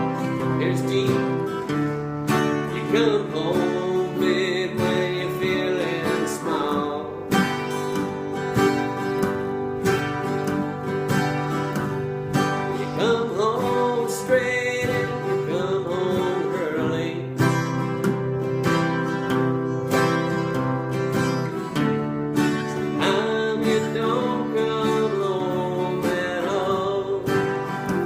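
Acoustic guitar music: steady strummed chords, with a melody line that bends up and down over them in three phrases about ten seconds apart.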